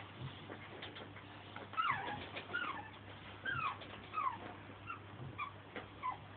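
Puppy whimpering: a run of about eight short, high whines, each falling in pitch, starting about two seconds in and growing shorter and fainter toward the end.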